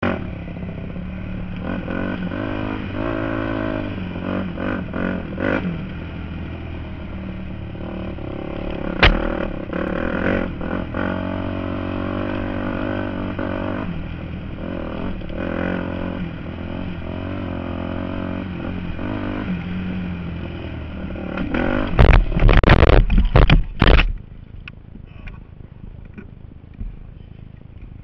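Yamaha YZ250F four-stroke single-cylinder dirt bike engine running and revving up and down on a trail ride, with a sharp knock about a third of the way in. Near the end comes a burst of loud crashing impacts and clatter as the bike hits a tree and goes down, after which the engine is no longer heard.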